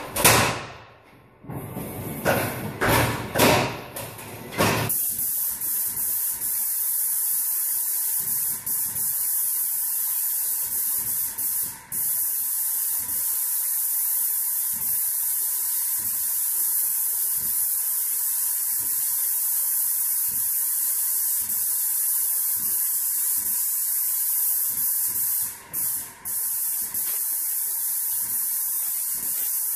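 Airless paint spray gun hissing steadily as it sprays paint, cutting out for a moment about twelve seconds in and twice more near the end as the trigger is let off. A few irregular knocks and bumps come in the first few seconds, before the spraying starts.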